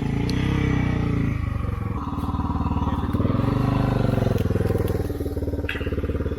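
Dual-sport motorcycle engine running, its pitch dropping about a second and a half in, then picking up again.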